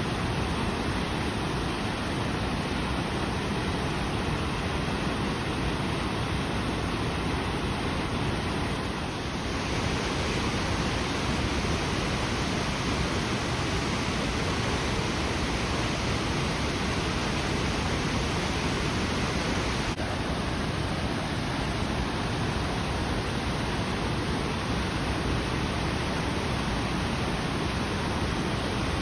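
Waterfall's steady rush of falling water, an even roar of noise that turns a little brighter about nine seconds in.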